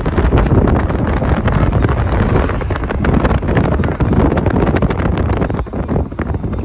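Wind buffeting the microphone of a phone filming from a moving car, a loud, gusty rumble mixed with the car's road noise.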